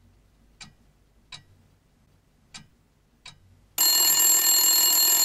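Telephone bell ringing: one continuous ring of about two seconds, starting about four seconds in. Before it come a few faint, scattered clicks.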